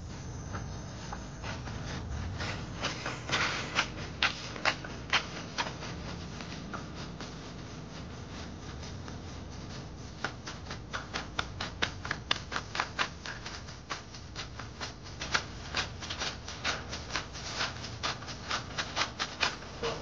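Footsteps on a hard path, a quick regular tread of sharp clicks about three a second, over a low steady rumble.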